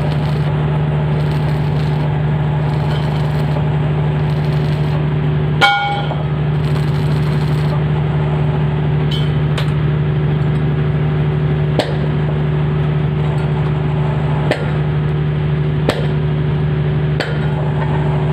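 A machine hums steadily and loudly, with a few sharp knocks and one ringing metal clink about six seconds in.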